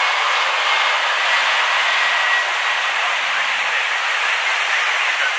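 Steady rushing noise of jet aircraft engines, with a faint high whine, easing slightly a couple of seconds in.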